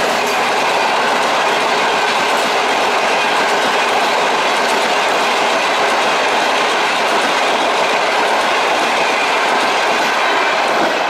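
Long-distance passenger train's coaches passing close at speed: a steady loud rush of wheels on the rails, with clicks as the wheels cross the rail joints.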